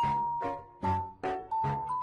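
Background music: a light tune of short notes, about three a second, each starting sharply and fading quickly.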